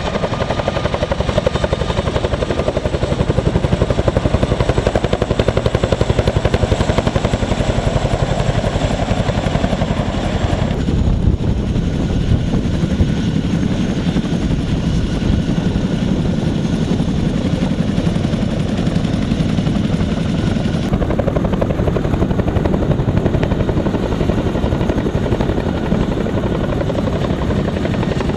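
CH-47 Chinook tandem-rotor helicopter running close by: a steady, rapid rotor beat under turbine noise. The sound changes abruptly twice, about 11 and 21 seconds in.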